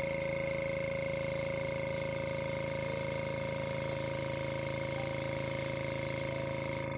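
Compressed air hissing steadily from an airbrush-style air gun as it blows wet acrylic pour paint across a canvas, with a steady tone running under the hiss. The air cuts off suddenly near the end.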